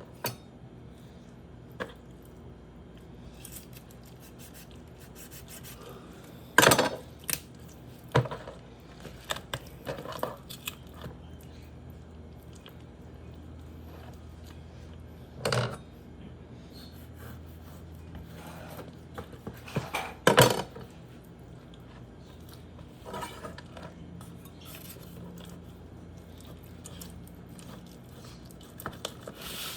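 Knife work on a cutting board while a whole raw chicken is cut up: scattered scraping and rubbing, with a few sharp knocks of the blade on the board, loudest three times.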